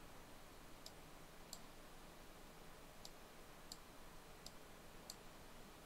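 Near-silent room tone with about six faint, sharp clicks at irregular intervals: a computer mouse being clicked.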